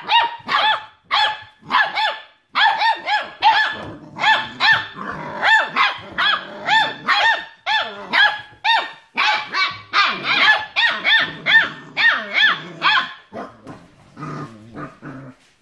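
Six-week-old border collie puppy play-barking over and over, short high-pitched yaps at about two or three a second. The barking stops about thirteen seconds in, leaving quieter, lower sounds.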